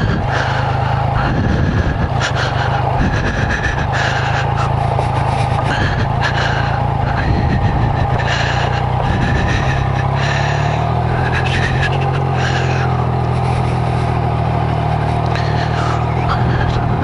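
Yamaha MT-09's three-cylinder engine running steadily on the move, its low note shifting slightly about ten seconds in.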